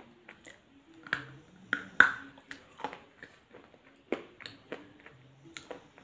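Close-up eating sounds: a person biting and chewing a small piece of food, with irregular sharp clicks and smacks, the loudest about two seconds in.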